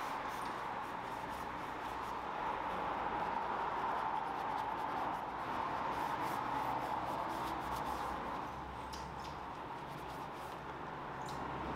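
Gloved hand scrubbing soapy foam on a car's plastic front grille, with faint scattered rubbing ticks over a steady background hiss that is the loudest thing heard.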